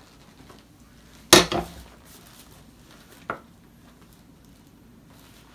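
Office chair backrest being fitted onto the seat: one loud hard knock of the parts meeting about a second in, with a short rattle after it, and a smaller click a couple of seconds later.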